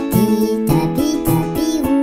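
Children's song backing music: a bright, pitched instrumental tune over a steady beat.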